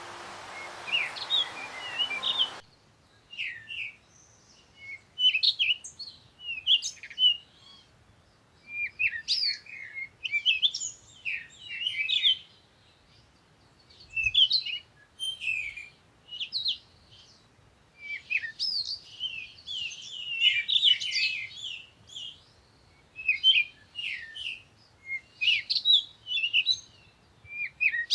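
Small songbirds chirping and singing in short bursts of quick, high phrases with brief pauses between them. A steady hiss lies under the birds for the first couple of seconds and cuts off suddenly.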